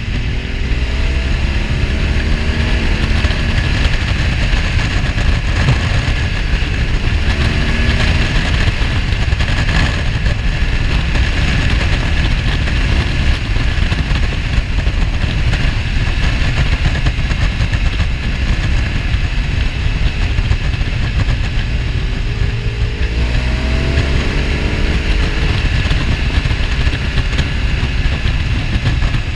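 BMW R1200 GS Adventure's boxer-twin engine pulling on the move, heard from the bike with steady wind rush over it. The engine note rises with the revs a few times, around a second in and again near the end.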